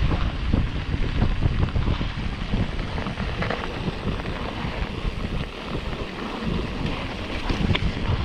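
Wind buffeting the microphone over the rumble and knocking of a mountain bike rolling down a snow-covered trail, with a few sharper clicks.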